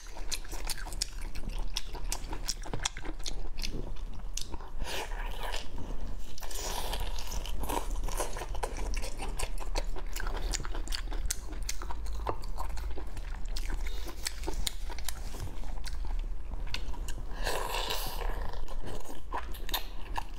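Close-miked eating sounds: chewing with many quick wet clicks and smacks, and a few longer sucking noises, the loudest about eighteen seconds in.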